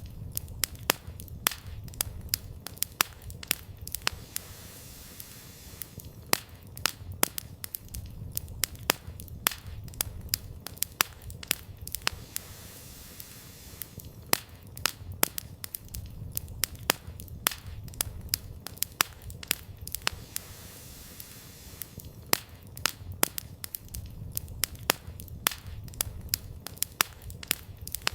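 Campfire of burning firewood crackling, with frequent irregular sharp pops that come in clusters over a low, steady rumble.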